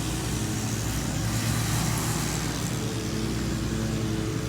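Steady low hum of a running vehicle engine under a constant wash of outdoor traffic noise.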